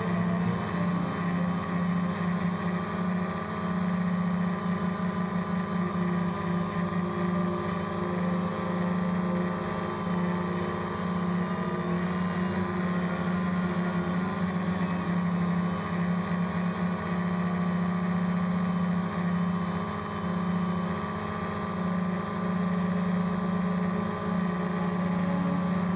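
DJI Phantom quadcopter's four electric motors and propellers giving a steady hum as it flies, picked up by the camera mounted on it. The pitch wobbles slightly about halfway through.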